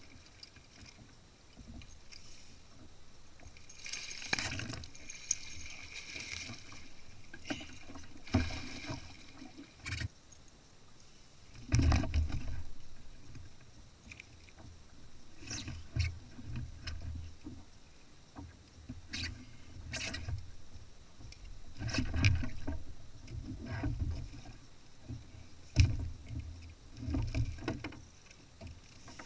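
Irregular knocks, thumps and rattles of fishing gear, a landing net and a long plastic measuring board, being handled against a plastic fishing kayak, with a stretch of hissy rustling about four seconds in.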